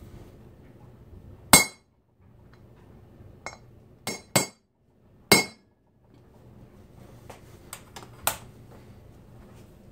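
Steel hammer striking a flat punch to drive a tapered pin into an aluminium 6-71 blower rotor: sharp metallic clinks with a brief ring. About five hard blows in the first half are followed near the end by four lighter taps.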